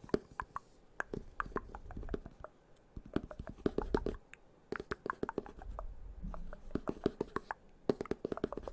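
Fingers tapping and scratching right at a microphone: many quick small clicks and taps in irregular clusters, with low rumbling handling noise.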